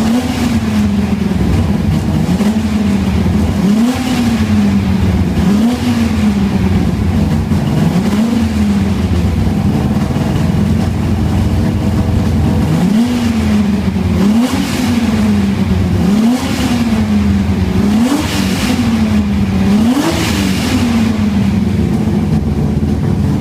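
An engine revving up and dropping back over and over, roughly every two seconds.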